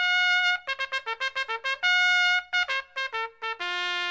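Solo trumpet playing a short jingle: a held note, a quick run of short notes, a second held note, more quick notes, and a long lower final note near the end.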